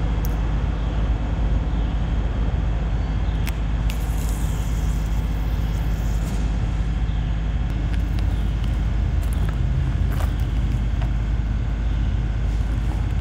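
Steady rumble of road traffic on the bridge overhead, with a few faint clicks.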